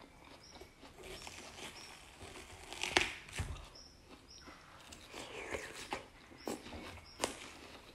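Eating watermelon with a spoon: scooping and close chewing of crisp, juicy flesh in irregular clicks and wet smacks, with sharper clicks about three seconds in and near the end.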